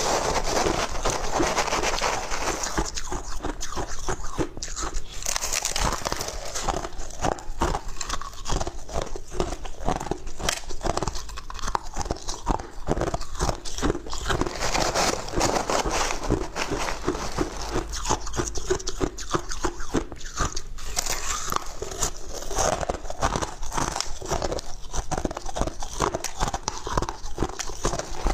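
Crushed ice crunched and chewed between the teeth, close to a clip-on microphone, in a steady run of crackling crunches, with a metal spoon scooping through a tub of ice.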